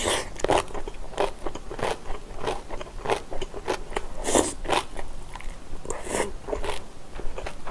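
A person chewing mouthfuls of food close to the microphone: a steady run of quick, irregular wet mouth clicks and smacks, with a couple of louder ones about four and a half and six seconds in.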